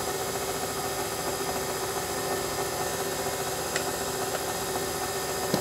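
Steady whir and hum of a small electric motor running at constant speed, with a faint click or two.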